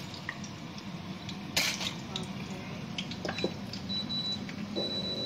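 Kitchen utensils clicking and clinking against a plate and pan, with a short loud hiss about a second and a half in, over a steady low hum. A thin high tone sounds on and off near the end.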